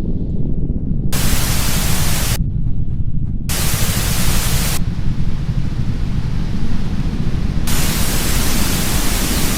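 Loud static-like noise: a steady low rumble throughout, with harsh hiss across all pitches cutting in and out abruptly three times: twice for about a second, then again near the end.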